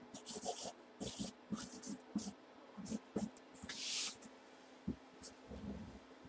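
Felt-tip marker squeaking and scratching across a cardboard box in a series of short strokes, with small taps and rustles as the box is handled; the longest stroke comes about four seconds in.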